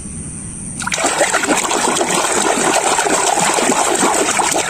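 A hand splashing and churning water in a tub, starting about a second in and going on steadily.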